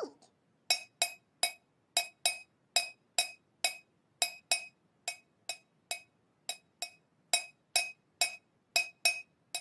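A metal teaspoon clinking against the inside of a ceramic mug while stirring, about twenty bright, ringing clinks at a steady two to three a second.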